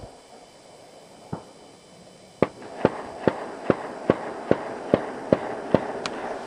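Sharp mechanical clicks. One comes alone, then about a second later a run of nine follows at an even pace, a little over two a second, with two lighter ticks near the end.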